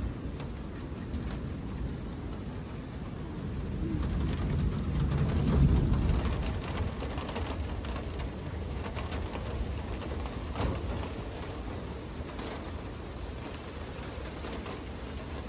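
Rain beginning to fall, with a low rumble of thunder that swells about four to six seconds in, and scattered sharp drop ticks after it.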